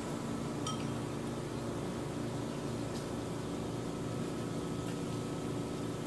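Steady mechanical hum of an appliance running, with a faint metallic clink of chopsticks against the metal grill pan about a second in and a few light ticks.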